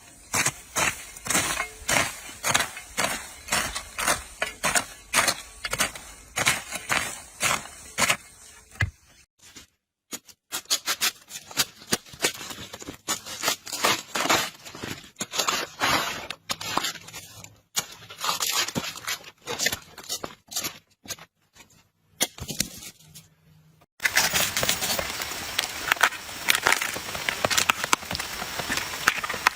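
Fresh vegetables being harvested by hand: crisp snapping and crunching of stalks and leaves, about two snaps a second at first, then sparser cracks with pauses. Near the end a dense crackling hiss takes over.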